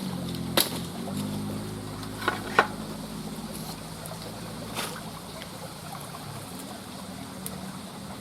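A motor hums steadily in the background under faint trickling water, with a few short sharp clicks or splashes in the first five seconds.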